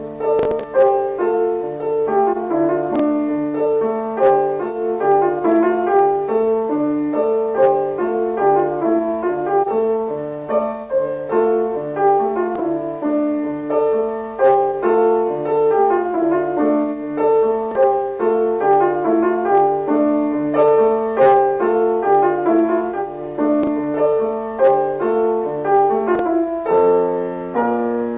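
A keyboard playing an instrumental passage: a low bass note repeating steadily under a running melody. It starts abruptly.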